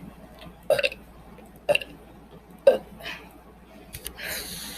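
A man burping deliberately again and again: three short, loud burps about a second apart. Near the end come a couple of sharp clicks and a brief hiss.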